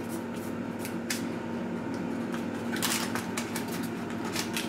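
Fingertips patting and pressing sliced almonds into thick oat cake batter in a parchment-lined tin: a run of light, irregular taps and paper rustles, over a steady low hum.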